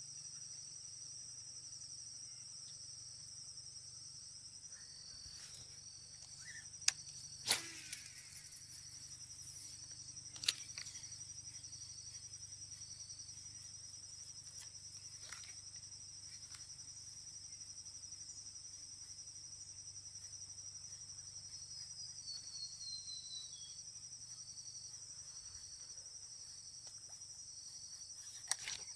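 Steady high-pitched insect chorus, with a few sharp clicks about seven and ten seconds in, the loudest at about seven and a half seconds.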